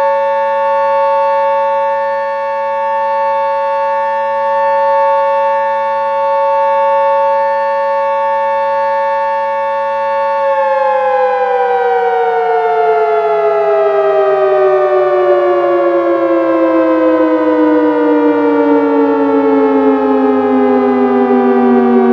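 Emergency alert alarm tone, a loud siren-like chord of several steady pitches held unchanged for about ten seconds, then the whole chord slides slowly down in pitch, like a siren winding down.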